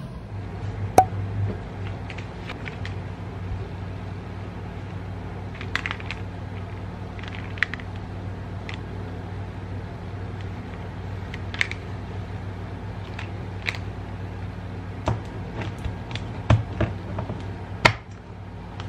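Light clicks and taps from handling a plastic chocolate jar and its lid, coming thicker in the last few seconds, over a steady low hum.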